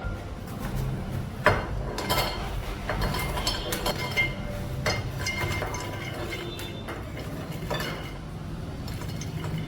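Kitchen dishes and utensils clinking and knocking: scattered sharp clinks, the loudest about a second and a half in, over a steady low hum.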